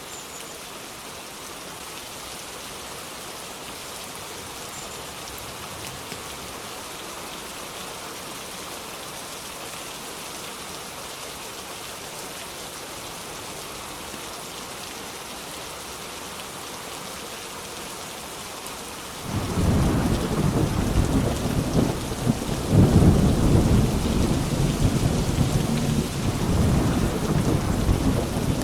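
Steady rain hissing, then about two-thirds of the way through a sudden loud rumble of thunder breaks in and keeps rolling in surges to the end.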